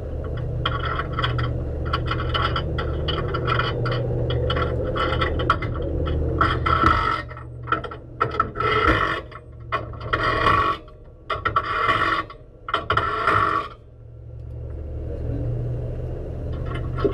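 Race car's engine idling while the car stands still, with a rapid irregular rattling in the cabin over it, then several loud harsh bursts of rattling about halfway through.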